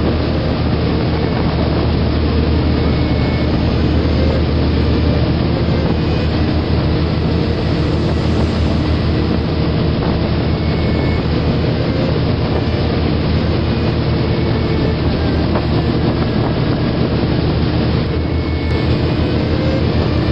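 A steady, loud, deep rumble with a dense hiss over it, unbroken throughout, with no beat or melody standing out.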